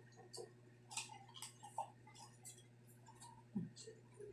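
Close-miked chewing of fried pork intestines: faint, irregular crisp clicks and crunches, several a second, over a steady low hum, with a soft low thump about three and a half seconds in.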